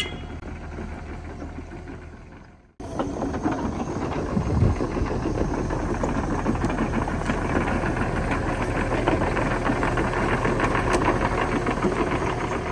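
A SANY mini excavator's diesel engine running steadily. The sound breaks off for a moment about three seconds in, then comes back louder.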